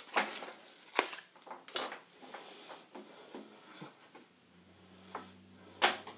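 Hair elastics being pulled from their card-and-plastic packaging and laid on a wooden table by hand: scattered rustles, light taps and a few sharp clicks, the sharpest near the end.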